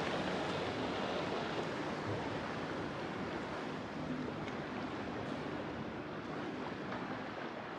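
Steady rush of water along a motor yacht's hull as it cruises, with wind on the microphone and a faint low engine hum underneath.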